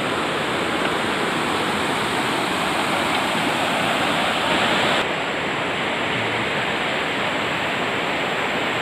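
River water rushing in rapids over broken concrete slabs and rocks, a steady, even wash of noise. About five seconds in it turns slightly duller and quieter.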